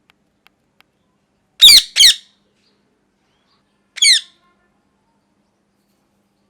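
Pet ringneck parrot squawking: two sharp, harsh calls in quick succession about a second and a half in, then a third about four seconds in.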